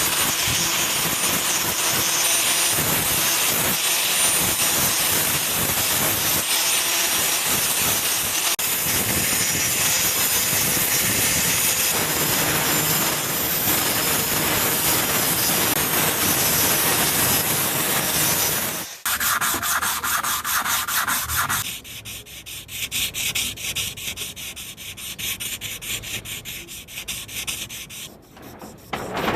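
Sanding: a steady, dense abrasive rasp for most of the time. About two-thirds of the way in it gives way to quieter, quick rhythmic rubbing strokes.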